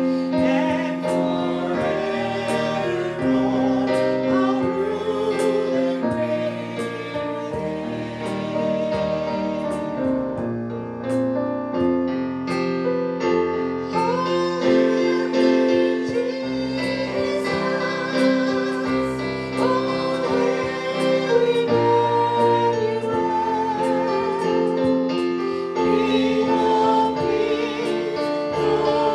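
A song sung with piano accompaniment, the voice holding long notes with vibrato.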